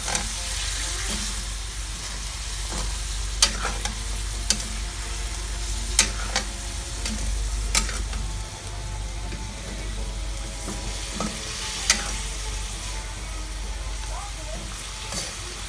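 Pork, green beans and potatoes sizzling in soy sauce in a metal wok as a metal spatula stirs and tosses them. The sizzle is steady, with sharp clanks of the spatula against the pan every few seconds.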